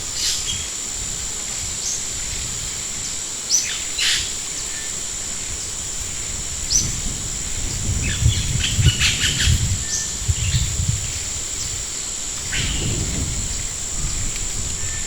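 Birds chirping, short high notes every second or few, over a steady high-pitched whine. Low rumbling comes in about eight seconds in and again near the end.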